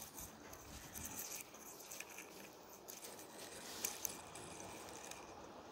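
Quiet background noise with a few soft, faint clicks.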